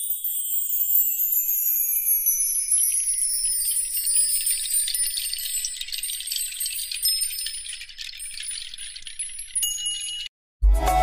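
High, shimmering chimes and jingling bells, with many tones sliding downward in pitch, cutting off suddenly near the end. Electronic dance music with a heavy beat starts just after.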